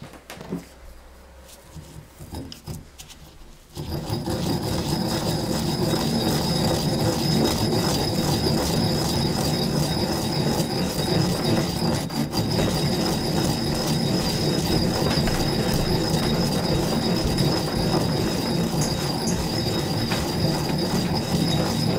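Stone pestle grinding dry seeds and salt in a stone mortar: a few light knocks, then from about four seconds in a loud, continuous stone-on-stone grinding and scraping with a thin high squeal on top.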